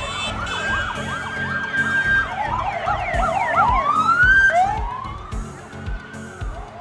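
Several vehicle sirens sounding at once: quick repeated rising-and-falling yelps, then slower long wails that rise and fall, over music with a steady beat.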